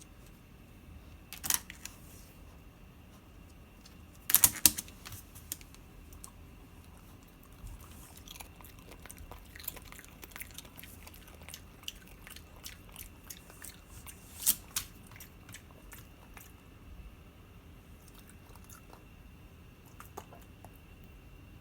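Boston terrier chewing and crunching a snack: a scatter of sharp crunches and clicks, loudest about four and a half seconds in and again near fifteen seconds, with quicker small clicks in between.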